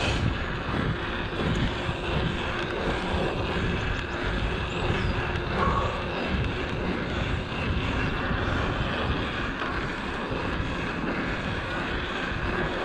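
Wind buffeting the microphone of a camera on a moving mountain bike, over the rolling noise of its tyres on a tarmac lane.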